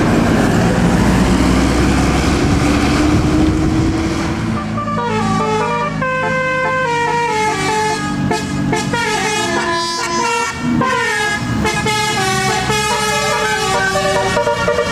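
Large vehicle engine noise, rising slightly in pitch, then from about five seconds in a tour bus's telolet basuri musical horn plays a tune of quick stepped notes over the engine.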